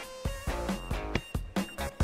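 Background music with guitar over a beat.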